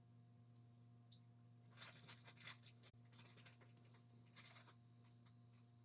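Near silence: a doorbell camera's own steady electrical hum and a faint high whine, with faint scratchy crackling rustles in two short spells about two seconds in and again around four and a half seconds in.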